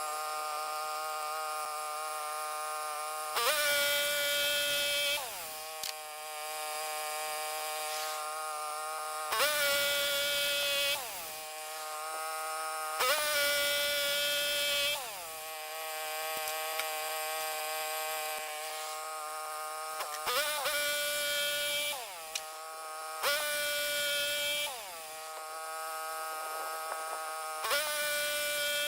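Electric power tool motor running steadily at high speed. About six times it bogs down under load for a second or two, with a harsher, louder noise while it works, then spins back up.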